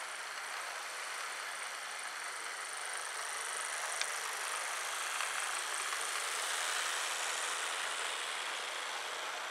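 Model freight train's electric motors whirring and its wheels rolling over the track, growing louder as the train passes close by, with one sharp click about four seconds in.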